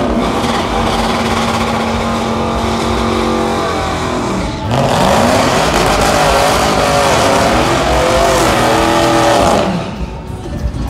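Pickup truck V8 held at high revs during a burnout, rear tires spinning and squealing. The engine note holds steady, drops briefly about four and a half seconds in, then climbs and holds louder before falling off near the end.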